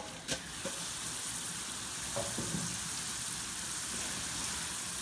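Soaked dal deep-frying in hot oil in a pan: a steady sizzle that sets in about half a second in, after a single short click.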